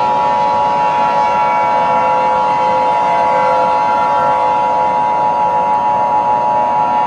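Emergency Alert System attention signal: a steady, loud two-tone beep held without a break, over a steady droning background.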